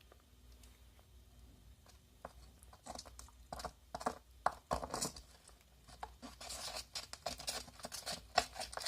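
A utensil stirring silicone glue mixed with glitter in a plastic container, making irregular scrapes and taps against the sides. The strokes begin about two seconds in and come thicker near the end.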